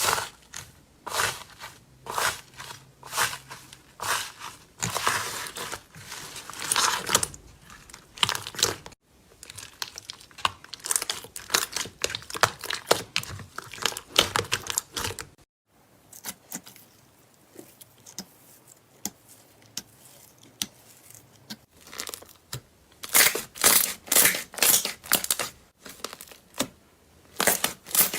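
Slime being worked by hand, giving dense runs of crackling, popping clicks. The sound breaks off abruptly twice and starts again.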